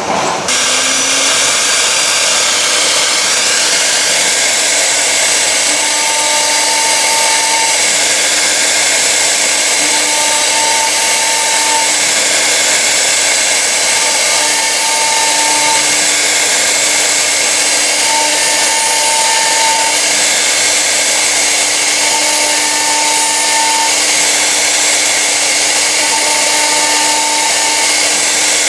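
Blue Elephant 1325 CNC router cutting acrylic, its spindle running steadily. A tone sounds for about two seconds, then stops, repeating roughly every four seconds.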